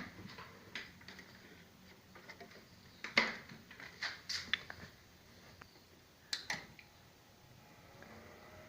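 Several sharp clicks and knocks from handling a desktop PC as its power cable is plugged back in, spaced a second or more apart, over a faint low hum. No beep-code tones are heard.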